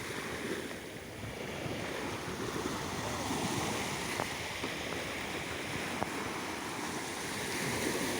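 Low waves of a calm sea washing in steadily, with wind buffeting the microphone.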